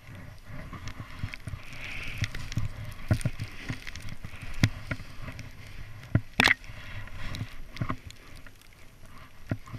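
Snowboard sliding and swishing through deep powder snow, with a run of irregular thumps and knocks and one sharp knock about six and a half seconds in.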